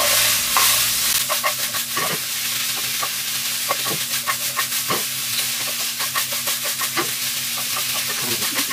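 Bok choy, shiitake and pork belly sizzling in a wok over high heat as they are stir-fried, with the ladle knocking and scraping against the wok about once or twice a second.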